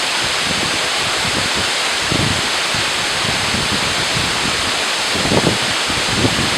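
Waterfall: a steady, loud rush of falling water, with gusts of wind buffeting the microphone underneath, strongest near the end.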